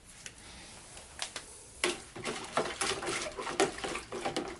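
Small plastic parts of a disassembled Casio PB-2000C pocket computer clicking and clattering as they are handled. There are a few faint clicks at first, then a quick irregular run of light taps from about two seconds in.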